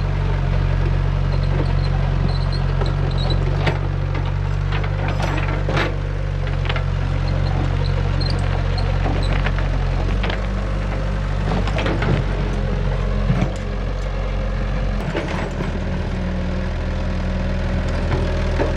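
Kobelco mini excavator's diesel engine running steadily under digging load, with scattered knocks and scrapes as the steel bucket breaks into stony earth.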